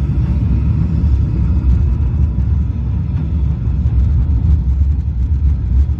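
Steady low rumble inside a Mission: Space simulator capsule waiting for launch.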